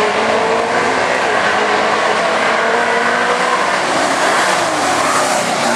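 Two pickup trucks' engines at full throttle, drag racing side by side off the start line and down the strip. The sound stays loud throughout, with engine pitch gliding as they accelerate.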